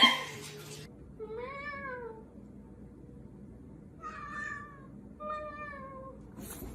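A domestic cat meowing three times. The first meow is long, rising and then falling in pitch; the last two are shorter and come close together in the second half.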